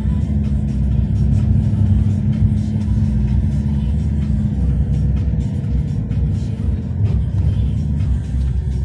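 Car driving, heard from inside: a steady low rumble of engine and road noise.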